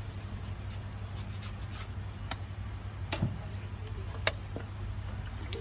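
Cheese being grated by hand with a flat metal grater onto an egg mixture on a griddle: faint scraping strokes, then a few sharp metallic clicks about a second apart. A steady low hum runs underneath.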